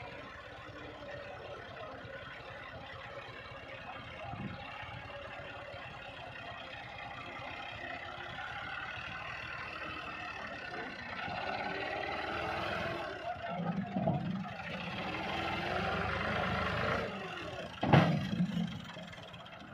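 Massey Ferguson tractor's diesel engine labouring under a heavily loaded trolley, revving harder from about halfway through as it hauls the load up a bank. A single loud bang comes about two seconds before the end.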